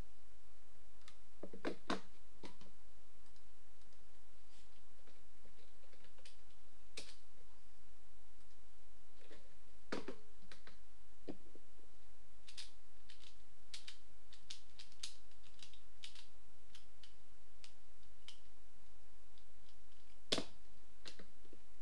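Sparse plastic clicks and taps from handling a pyraminx puzzle, a Stackmat timer and a computer mouse on a desk, with a small run of clicks in the middle and a sharper one near the end, over a steady low hum.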